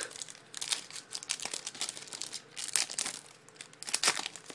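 Foil wrapper of a Topps Chrome baseball card pack crinkling and tearing as it is pulled open by hand, in irregular crackling bursts, the loudest about four seconds in.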